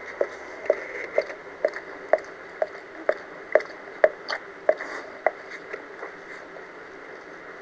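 A Dalmatian mother licking her newborn puppies: wet, squishy licks about two a second. They weaken and die away about five seconds in.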